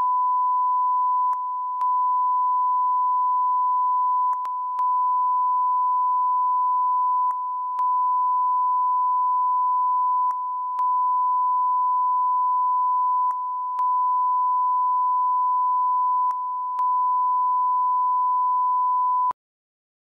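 Broadcast line-up test tone: one steady pure 1 kHz tone that dips slightly in level for a moment about every three seconds, in the pattern of a stereo channel-ident tone, then cuts off suddenly near the end.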